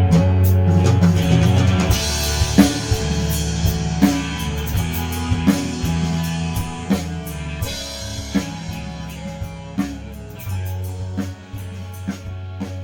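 Band playing an instrumental passage of a pop-rock song with drum kit, bass and guitar and no singing. The full band comes in together right after a brief break, with drum hits about every second and a half.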